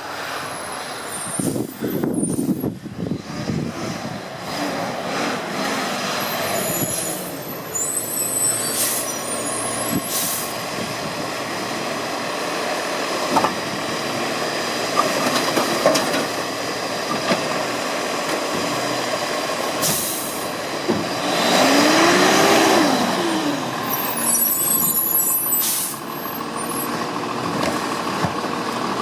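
Garbage truck at work: engine running with short, sharp hisses of air, and a louder rush about two-thirds of the way in carrying a whine that rises and then falls.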